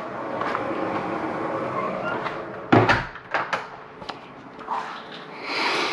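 A door shutting with a sharp thump about three seconds in, followed by a couple of lighter clicks, over a steady low hum.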